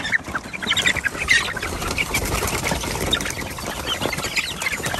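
A flock of young chickens scrambling out of a coop hatch and down a wooden ramp: wings flapping and feet scuffling, with many short high peeps and clucks throughout.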